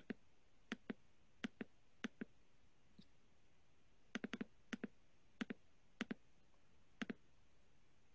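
Computer mouse clicking: sharp clicks, mostly in close pairs like a button's press and release, about a dozen in all, with a pause of under two seconds near the middle.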